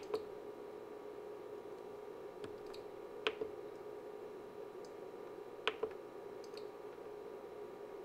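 Front-panel multifunction knob and buttons of a Rigol DS1104Z-S Plus oscilloscope being pressed and turned. They give sharp, irregular clicks, several in quick pairs, over a steady low hum.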